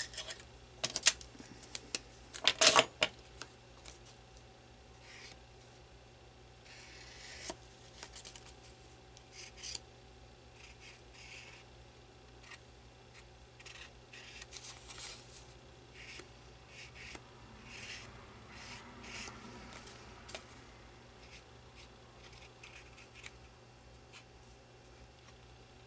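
A few sharp clicks and knocks near the start as tools and the marker are handled, then faint, scratchy rubbing of a black marker tip being run along the edges of a paper card to ink them, mixed with the light rustle of the card being turned.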